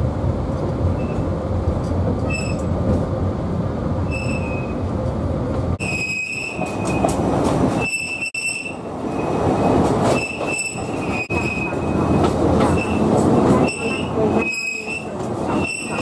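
Alishan Forest Railway narrow-gauge train running with a steady rumble of wheels on rail, and high-pitched wheel squeal from the tight curves of the spiral climb around Dulishan. The squeal comes faintly at first and in repeated bursts from about six seconds in.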